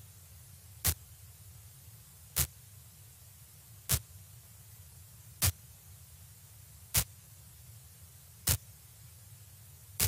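Sharp clicks repeating evenly about every second and a half, seven in all, over a steady low hum and faint hiss.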